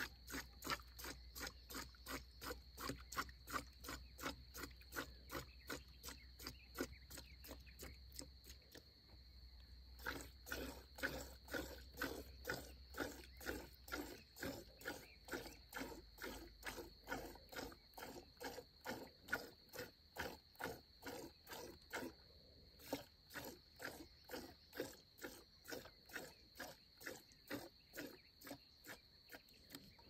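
Milk squirting from a cow's teats into a plastic bucket during hand milking: short hissing squirts in a steady rhythm of two or three a second, pausing briefly twice. A steady high tone runs underneath.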